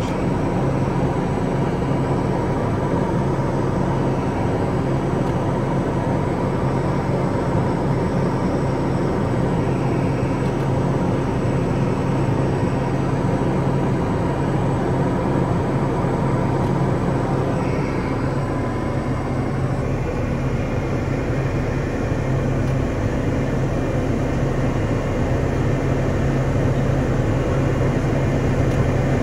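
Steady cockpit drone of a Piper Meridian's single Pratt & Whitney PT6A turboprop engine and propeller in flight, heard from inside the cabin.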